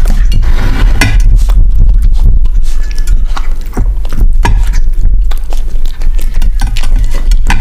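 A puppy eating sausage pieces off a ceramic plate close to the microphone: wet chewing and licking, with frequent small clicks and clinks of teeth and snout against the plate, over a steady low rumble.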